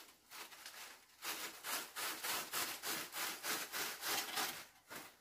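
Wood being sawn by hand, in quick, even strokes about three a second that start about a second in and stop just before the end.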